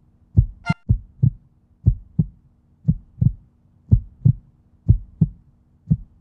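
Heartbeat sound effect: pairs of low thumps about a third of a second apart, repeating about once a second over a faint steady low hum. A brief high blip sounds once, just under a second in.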